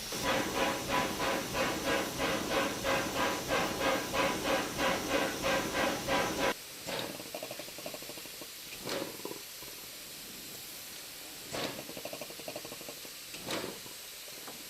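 WWII Kriegslok steam locomotive heard from the footplate: even rhythmic steam beats, about three or four a second, over a steady hiss. About six and a half seconds in the beats cut off suddenly, leaving a quieter hiss with a few short sharp knocks.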